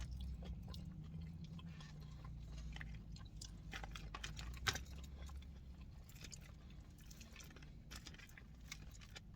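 A person chewing a mouthful of cheese-topped curly fries close to the microphone, heard as many small, irregular mouth clicks.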